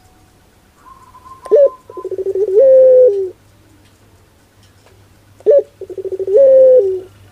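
Puter pelung (Barbary dove) cooing twice, about four seconds apart. Each call opens with a sharp short note, runs into a fast stutter, and ends in a long held coo that steps up and then drops back down.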